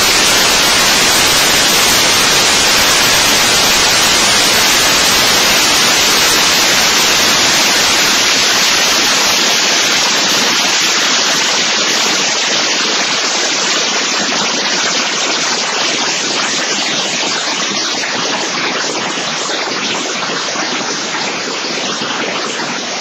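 Loud, steady static hiss, like white noise, with no other sound standing out from it.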